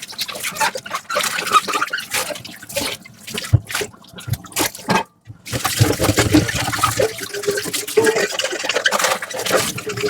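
Hand-washing dishes at a sink: water splashing and running over dishes, with clicks and knocks of crockery being handled and scrubbed. The sounds break off for a moment about halfway, then carry on.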